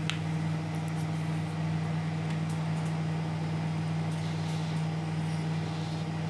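Microwave oven running with a steady low hum as it heats food, with a single short click at the start.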